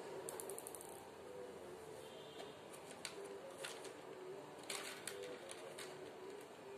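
Faint clicks and light rustling from yarn pompoms and scissors being handled, with a quick run of small ticks early on and a few single clicks later, over a faint steady hum.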